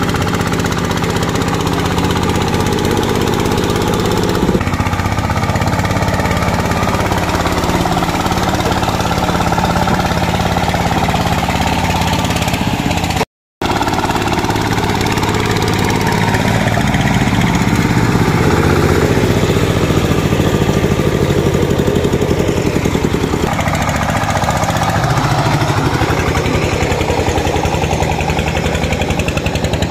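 Single-cylinder diesel engine of a công nông two-wheel tractor running with a rapid, steady chugging beat while it pulls a trailer of logs. The sound cuts out completely for a split second about 13 seconds in, then carries on.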